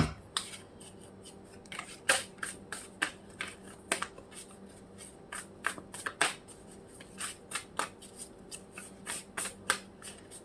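Tarot cards being handled and shuffled by hand: an irregular string of light card slaps and snaps, two or three a second.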